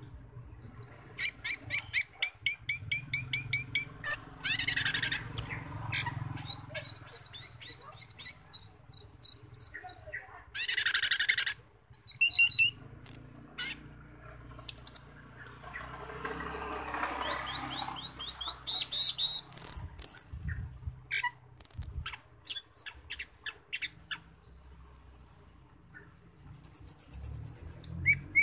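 Asian glossy starling (cucak keling) singing a long, varied song: rapid series of high ticking notes, thin whistles and glides, and short harsh bursts, broken by several sharp loud calls and brief pauses.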